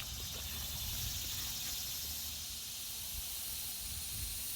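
Steady outdoor hiss with a low rumble underneath; no shot is fired.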